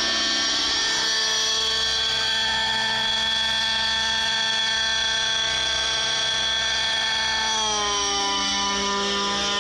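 Align T-Rex 700 radio-controlled helicopter with a two-stroke petrol engine, running at steady high revs with a high-pitched whine. About eight seconds in, the pitch drops as the revs come down.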